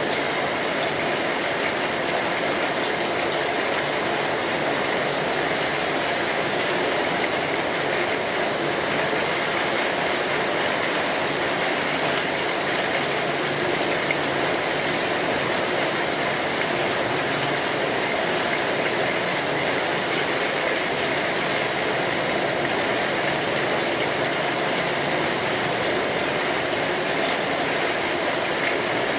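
Steady rain falling, an even hiss that does not change or pause.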